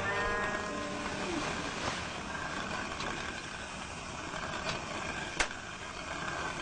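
Stone hand quern being turned, the upper millstone grinding steadily on the lower one. One sharp click about five seconds in.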